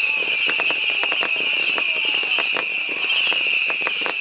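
Fireworks tower spraying rockets and fountains of sparks: a steady high-pitched hiss under dense, irregular crackling pops, several a second.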